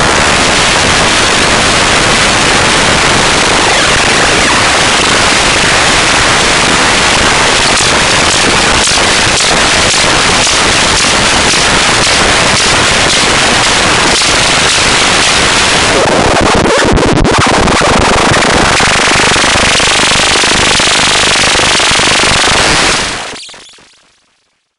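A loud, harsh crackling buzz that holds steady, then fades out near the end.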